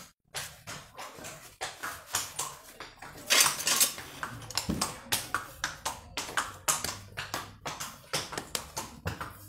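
Farrier's metal hand tools working a horse's hoof: a steady run of sharp clicks and short scrapes, with one louder scrape lasting most of a second about three and a half seconds in.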